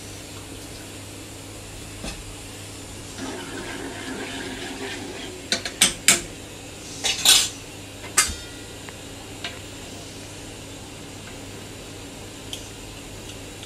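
Apple juice poured from a carton into a saucepan on a gas hob, then several sharp metallic clinks and knocks of pans and utensils around the middle, one ringing briefly, over a steady low hum.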